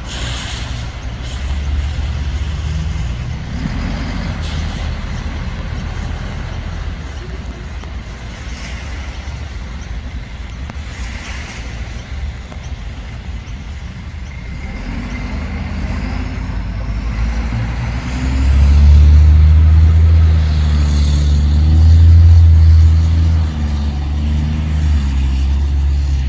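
Heavy fire-truck diesel engines running as the Scania hazmat truck drives away. About two-thirds of the way in, a much louder, deep engine rumble starts up close and keeps going to the end.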